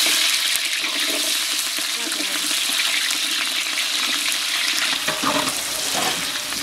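Sliced onions and green chillies sizzling as they are tipped into hot oil in a large aluminium cooking pot: a loud, steady frying hiss, the first stage of a beef curry. A few light knocks come about five seconds in.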